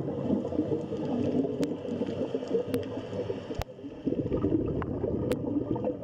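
Underwater gurgling of bubbles, dipping briefly a little before the four-second mark and then resuming, with a few sharp clicks.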